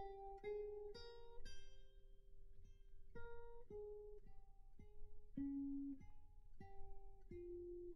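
Quiet plucked guitar playing a slow, single-note melody, one note at a time, each ringing out and fading, as the song's instrumental ending.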